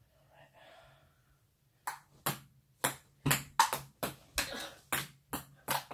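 Ping pong ball bouncing and clicking on a hard floor: about a dozen quick, sharp ticks at uneven spacing, starting about two seconds in.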